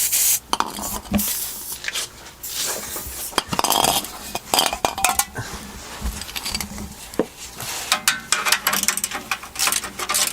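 Irregular metallic clanking, rattling and scraping as a car's exhaust pipe is wrenched and worked loose from underneath the car.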